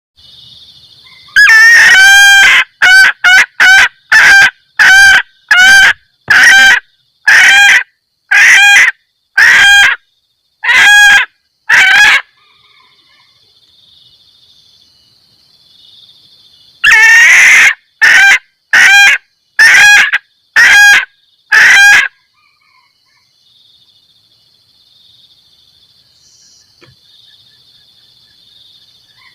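Female junglefowl giving its 'kekkek' mating call, used as a lure call to draw in males. It comes in two bouts of short clucking notes at about two a second, each bout opening with a longer note, loud enough to distort.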